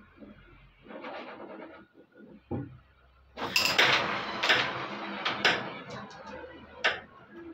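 A carrom striker flicked across the board: a sharp click, then a burst of clacks as the striker and carrom men strike each other and knock against the wooden frame, and one last sharp click near the end.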